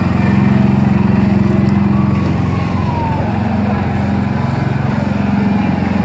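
Small engine of a trackless kiddie ride train running steadily under way, a low even hum close by.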